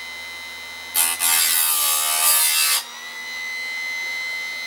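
Chicago Electric chainsaw sharpener's motor running with a steady whine; about a second in, the spinning grinding wheel is brought down onto a chain cutter tooth and grinds harshly for just under two seconds, then the motor runs on alone.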